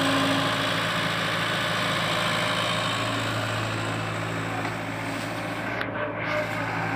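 Diesel engine of a CAT tracked excavator running steadily while it works its boom and bucket in the soil.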